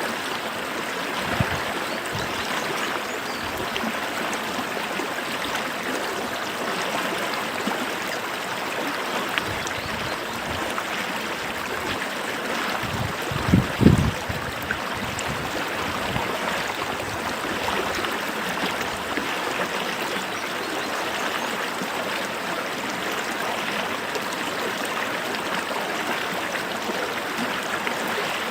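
Stream water running and gurgling steadily, with a few brief low thuds, the loudest cluster about halfway through.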